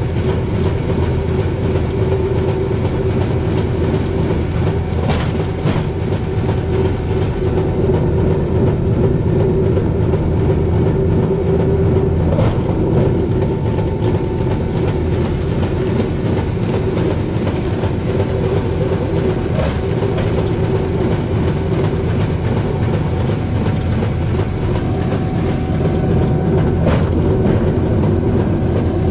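Electric-assisted rail bike rolling along steel rails: a steady rumble of wheels on track with a held tone, and a single click every several seconds.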